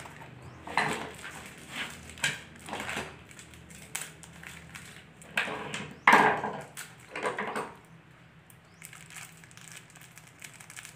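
Irregular clatter and knocks of steel concealed cabinet hinges and loose screws being handled and sorted on a wooden workbench, loudest about six seconds in and quieter near the end.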